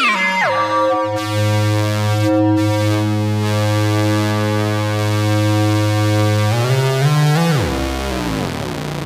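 Noise Engineering Sinc Iter Eurorack oscillator in its super mode (six stacked oscillators): its pitch glides down into a low, steady, buzzy drone with a slow pulsing beat between the voices. Near the end the pitch sweeps up and then back down.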